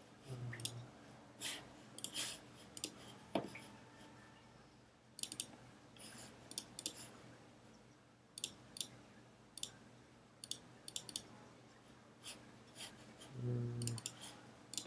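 Computer mouse clicking, single clicks and quick double clicks, scattered every second or so. A short low hum sounds near the start and again near the end.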